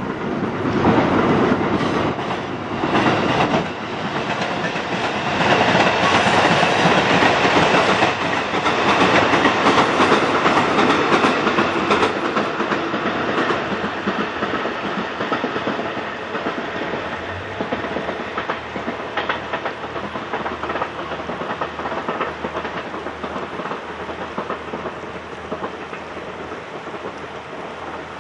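KiHa E130 diesel railcar train running along the track, its engine and wheels on the rails heard over the steady rush of river rapids. Loudest in the first half, fading gradually toward the end.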